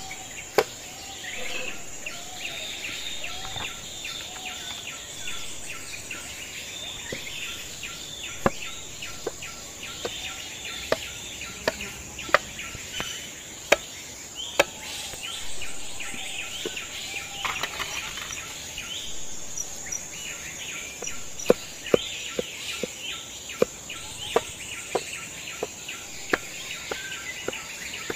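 Knife chopping vegetables on a wooden cutting board: irregular sharp knocks of the blade striking the board, sometimes several in quick succession. Behind it, a steady high insect drone and birds calling.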